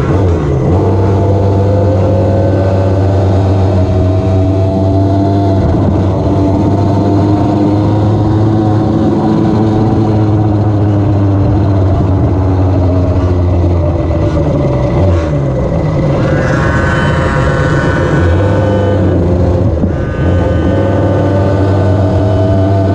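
Gas Go-Ped scooter's small two-stroke engine running under way, loud and close, its pitch rising and falling with the throttle. A higher engine whine joins for about three seconds past the middle.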